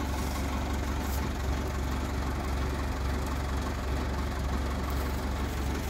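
A heavy engine idling steadily, with a low, even hum.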